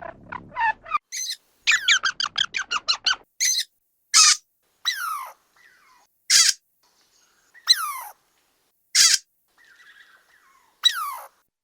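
Squirrel calling: a rapid run of short chirps, then a string of single sharp calls, each falling in pitch, one every one to two seconds.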